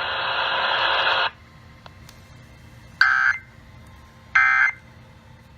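About a second of loud radio hiss that cuts off, then two short, shrill data bursts about 1.4 s apart: the EAS/SAME end-of-message code that closes a broadcast weather warning.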